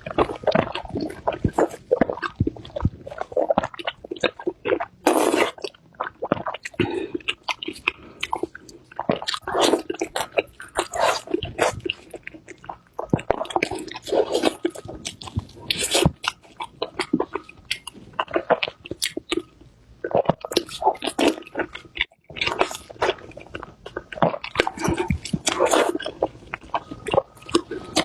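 Close-miked eating: crunchy biting and chewing in quick, irregular clicks and crackles.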